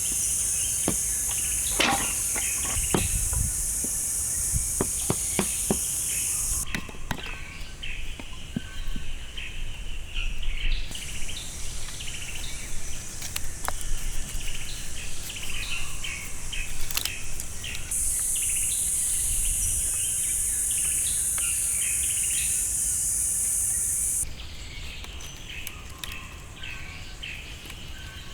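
Outdoor ambience: a steady high insect drone that stops and starts in long stretches, with birds chirping throughout. Several sharp knocks fall in the first few seconds.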